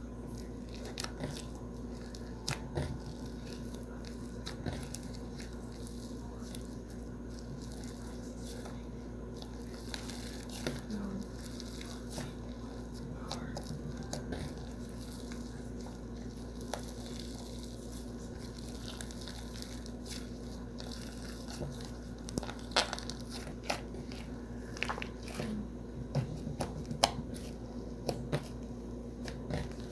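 Butter slime being squeezed, stretched and poked by hand, giving soft sticky clicks and crackles that come thicker and louder in the last third, over a steady low background hum.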